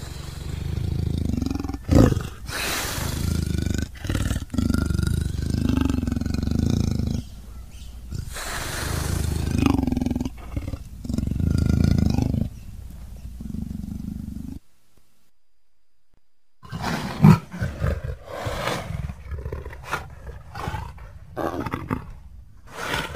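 Leopard vocalising in a string of long, low, loud calls of a couple of seconds each. After a break of about two seconds midway, shorter, choppier calls follow, with one sharp loud one just after the break.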